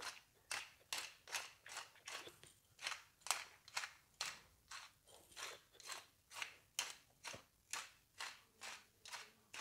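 Hand-twisted pepper mill grinding black peppercorns: a short grating crunch with each twist, about two a second, in a steady rhythm.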